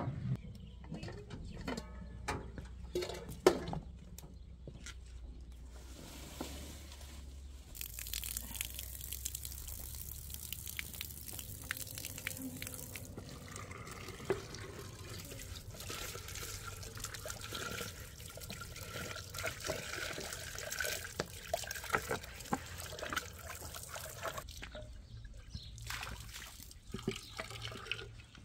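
Water running from an outdoor tap into a wooden vessel as it is filled and rinsed: a steady splashing flow that starts after several seconds of scattered knocks and stops a few seconds before the end.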